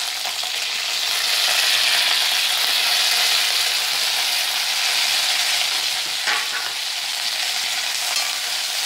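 Sliced onion and green onion leaves sizzling in hot oil in a wok: a steady frying hiss that swells over the first couple of seconds, with one brief knock about six seconds in.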